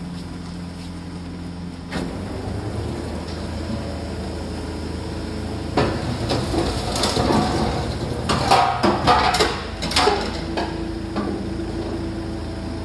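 Rear-loading garbage truck's packing mechanism running with a steady engine and hydraulic drone, with a single clunk about two seconds in. From about six to ten seconds a white wire clothes rack cracks and crunches in a run of sharp snaps as the packer plate crushes it into the body.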